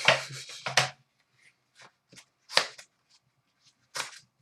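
Hockey trading cards handled by hand: a quick flurry of card swishes and clicks in the first second, then single cards slid off the stack every so often, the loudest about two and a half seconds in.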